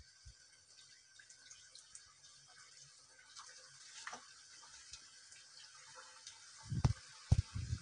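Potato and semolina cutlets deep-frying in hot oil in a kadai: a soft sizzle with scattered small crackles. A few dull thumps, the loudest sounds, come near the end.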